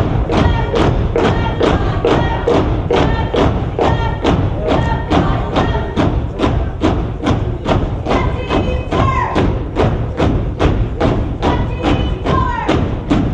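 Step team stepping: a steady rhythm of stomps and claps, about three beats a second, with a couple of short shouted calls over it near the end.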